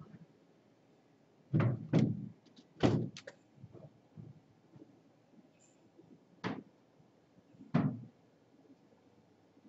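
Five dull knocks or thumps at uneven intervals: two close together about a second and a half in, another about a second later, then two more a few seconds apart.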